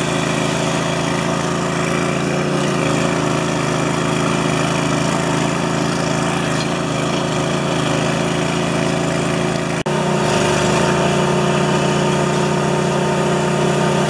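Stump grinder's gasoline engine running steadily. About ten seconds in it drops out for an instant, then carries on slightly louder and lower.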